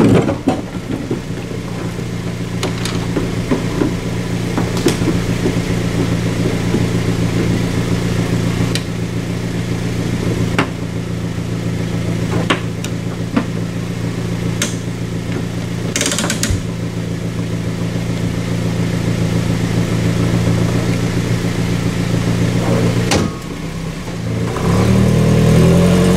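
A vehicle engine idling steadily, with a few sharp knocks now and then. Near the end the engine note drops briefly, then steps up as the engine revs.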